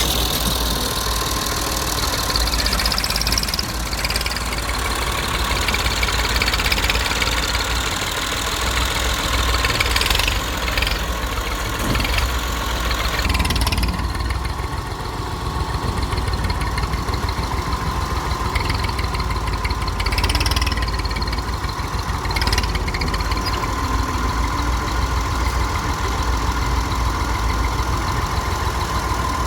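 Hydraulic excavator's diesel engine running under load, with a hydraulic whine that rises and falls in pitch as the boom and bucket move, and a few brief clunks.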